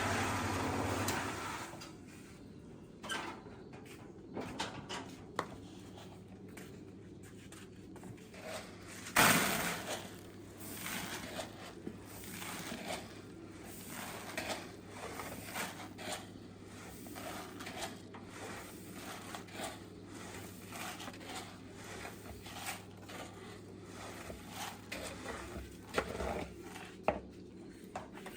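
Light clatter: scattered faint clicks and taps, with one sharper knock about nine seconds in. Music fades out at the start.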